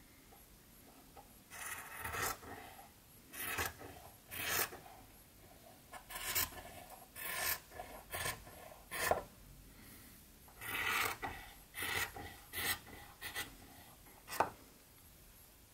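Scissors cutting through stitched white fabric: a series of short snips at an uneven pace, roughly one or two a second, starting about a second and a half in, with one sharp click near the end.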